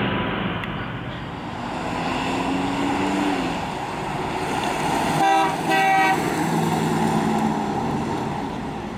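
1955 Pontiac Star Chief's 287 cu in V8 running as the car drives past at low speed, its note rising as it pulls along. A little past halfway its horn sounds two short toots, about half a second apart.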